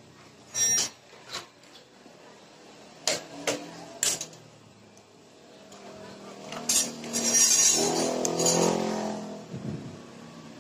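Metal clicks and clinks from a Yamaha X-Ride motorcycle starter motor being handled and fitted together during reassembly after a brush replacement: a few separate sharp clicks in the first four seconds, then a longer, louder stretch of metal rattling and scraping in the second half.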